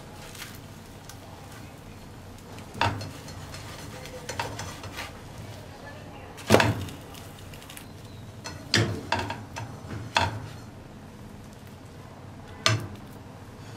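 Spatula clacking and scraping against a nonstick frying pan as egg-coated bread slices are flipped and pressed down: about six sharp knocks spread out, the loudest a little before the middle, over faint steady sizzling of the frying egg.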